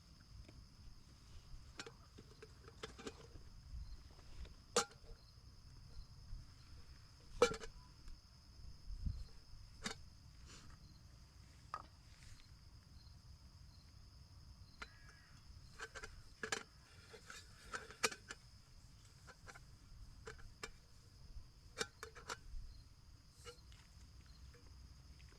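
Scattered light clicks and knocks of things being handled, a couple of them sharper, over a steady faint high-pitched chirring.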